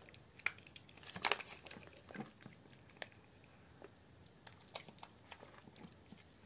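A small dog eating wet food, with faint, irregular chewing and lip-smacking clicks.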